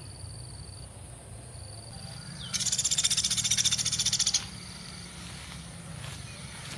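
A woodpecker's rapid, high-pitched rattling call, about ten notes a second, starting about two and a half seconds in and lasting roughly two seconds. A faint steady high tone and a low hum continue underneath.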